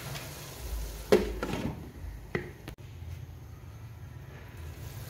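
A few sharp knocks and clatters of a utensil or pan against a wok on a gas stove: a loud knock about a second in, a quick run of smaller ones just after, and another a little before halfway. A low steady hum runs under them.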